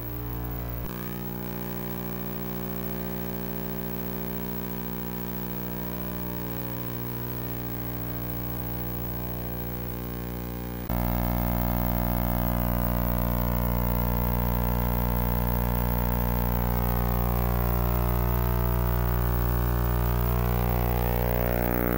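Background music: a sustained synth-like drone of held low tones with slowly sweeping higher tones, getting louder about halfway through.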